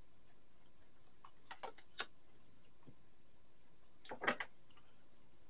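Tarot cards being handled and laid down: a few short, soft clicks about two seconds in and a small cluster of clicks about four seconds in.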